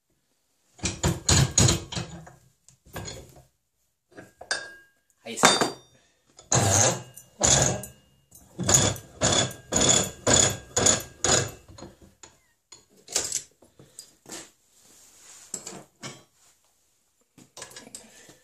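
Metal clanks and knocks from a steel bar and tools being handled at a bench vise. The strikes come singly, with a run of about six evenly spaced ones, two a second, in the middle.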